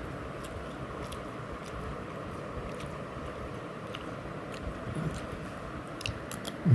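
Someone eating vermicelli: chewing, with faint clicks of a steel spoon against a steel plate, over a steady background hiss. Right at the end comes a short, louder low voice sound with falling pitch.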